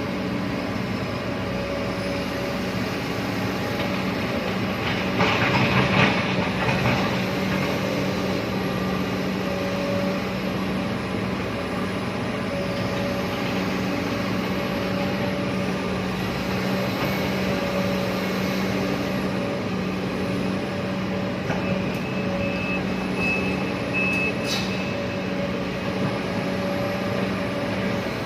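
Excavator's diesel engine running steadily, with a louder stretch of rattling noise about five to seven seconds in. Near the end a thin high tone sounds for a couple of seconds and stops with a click.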